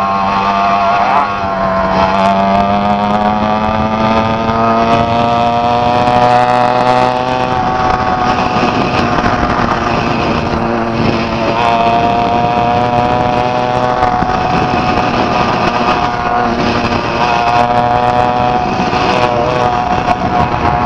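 80cc two-stroke bicycle kit engine running under way, its note climbing slowly over the first several seconds as the bike gathers speed, falling back about seven seconds in, then rising again and holding fairly steady.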